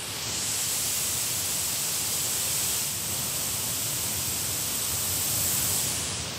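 White noise hissing from a small handheld Bluetooth speaker, picked up by a shotgun microphone as the speaker is moved around it for a polar-pattern test. The hiss swells up just after the start, holds steady, and fades near the end as the speaker moves off the front of the mic.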